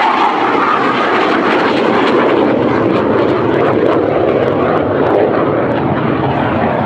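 Hawker Hunter jet fighter's Rolls-Royce Avon turbojet on a flypast: a loud, steady jet sound whose pitch falls as the aircraft passes and draws away.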